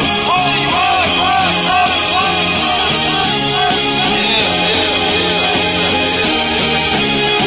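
A rock song played loud through dual 8-inch speakers with tweeters in Victory 007 motorcycle speaker lids, the EQ boosted and the volume turned up, with a short melodic figure repeating about twice a second over a steady bass line.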